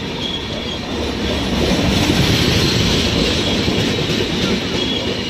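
Passenger train coaches passing close on the adjacent track: a loud, steady rush of wheel and running noise that grows louder about a second and a half in.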